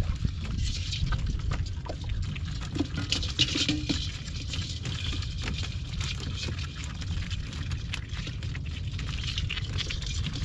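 Light scattered clicking and rattling of a bamboo chai fish trap's slats and string as it is handled and tied by hand, over a steady low rumble.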